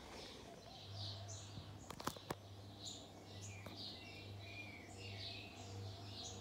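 Faint, steady hum of a stainless steel ceiling fan's motor just switched on, its level gently pulsing, with birds chirping throughout and a few sharp clicks about two seconds in.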